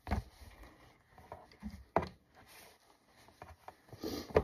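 A cloth rubbing and rustling as a kitchen counter is wiped down, with three sharp knocks about two seconds apart.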